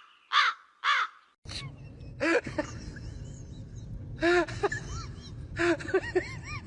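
Short animal calls: two quick calls in the first second, then, after a short gap, a series of brief rising-and-falling calls over a steady background noise.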